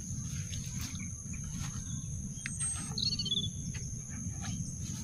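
Outdoor ambience: a steady high-pitched insect drone, like crickets, over a low background rumble, with a short bird chirp about three seconds in and a few faint clicks.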